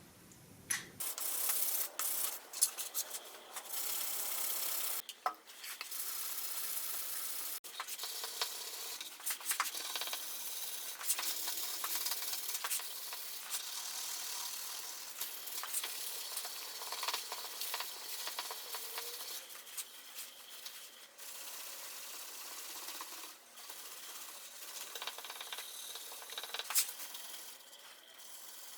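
Hand abrading of a steel knife blank made from a saw blade: repeated rubbing strokes of a file or abrasive against the metal, with no motor.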